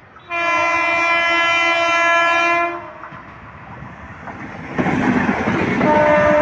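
MEMU electric multiple-unit train's horn blowing one long blast of about two and a half seconds as it approaches. About five seconds in, the train rushes past close by at speed with its wheels clattering over the rail joints, and a steady pitched tone rises over the noise near the end.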